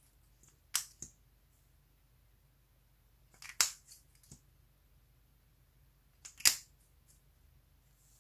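Sharp plastic clicks from a lip tint bottle's cap and applicator being opened and closed, in three short bursts: a pair about a second in, a louder cluster around three and a half seconds, and the loudest about six and a half seconds in.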